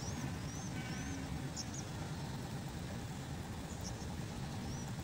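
Outdoor ambience: a steady low rumble, with a small bird giving short rising chirps several times.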